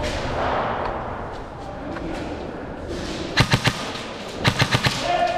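Airsoft gun firing two quick bursts of sharp shots, about three shots some three and a half seconds in and about five more a second later.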